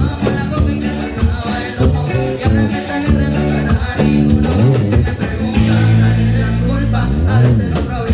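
Latin dance music played loudly, with steady low bass notes and a couple of sliding low tones.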